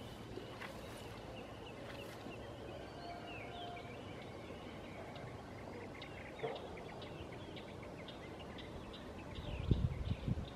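Birds chirping and calling, short high chirps and quick rattling ticks repeating throughout. A few low thumps come just before the end.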